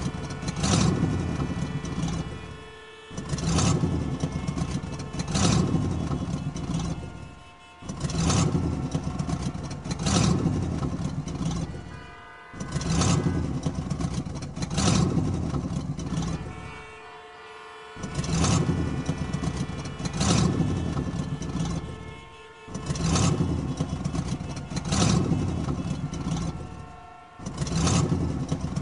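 Motor vehicle engine sound rising and falling in repeated surges about every two and a half seconds, with sharp clicks among them.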